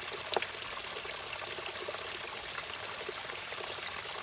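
Steady rain falling: an even hiss of many small drop ticks, one a little louder about half a second in.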